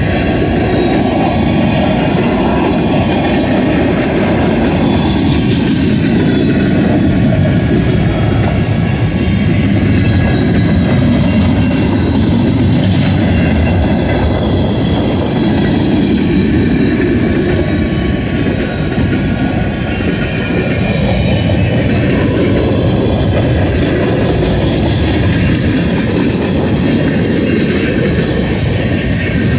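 Freight train cars, centerbeam flatcars and boxcars, rolling past close by: a loud, steady noise of steel wheels running on the rails.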